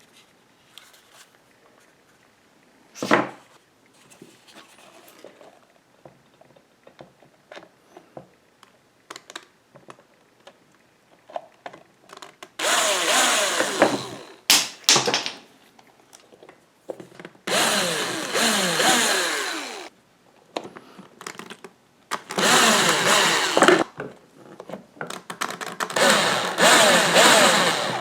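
Power screwdriver driving in the four Phillips screws that hold a mini lathe's speed controller box: four separate runs of the motor, each a couple of seconds long, in the second half. A few light knocks and clicks come before them.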